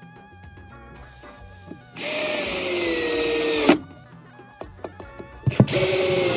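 Power drill running in two bursts: the first about two seconds long, its pitch slowly dropping as it works under load, the second shorter near the end. Light background music underneath.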